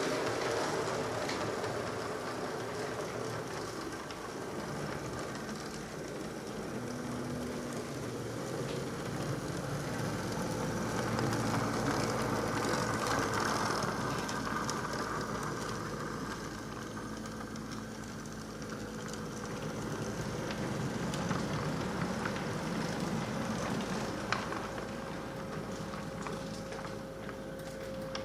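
Model train running along the track, a steady rolling noise that grows louder and fades again twice as it passes.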